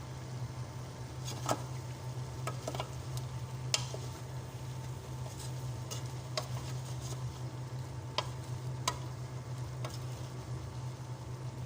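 A utensil stirring cooked mung beans in a pan of sautéed shrimp and vegetables, with a faint sizzle and scattered, irregular clicks as the spoon knocks the pan. A steady low hum runs underneath.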